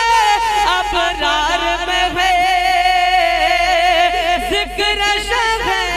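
A man singing a naat solo into a microphone, drawing out a line in long held notes that waver and bend in pitch.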